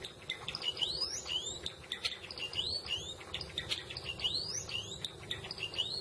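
Java sparrow singing: a quick run of clicking notes leading into rising, whistled slurs, the phrase repeated about three times.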